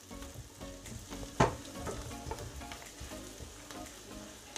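Onion and spices sizzling in oil in a stainless steel frying pan while a silicone spatula stirs and scrapes through them, with small clicks throughout and one sharp knock about a second and a half in. The paprika is being kept moving so it doesn't burn.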